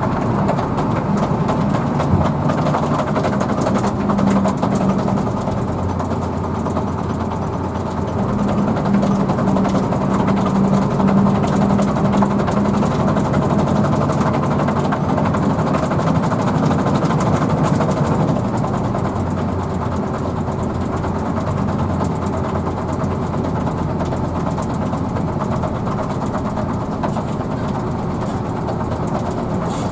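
Hino AK bus engine running under way, heard from inside the cabin, with a steady drone mixed with road and body noise. The engine note grows louder for several seconds about a third of the way in, then settles back.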